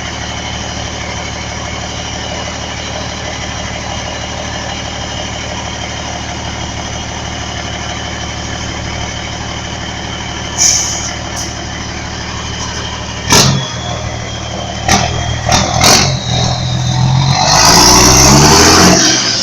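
Volkswagen 31.320 truck's diesel engine with a straight-through exhaust idling steadily, then revving up loud near the end. Along the way there is a brief hiss about ten seconds in and a few sharp knocks a few seconds later.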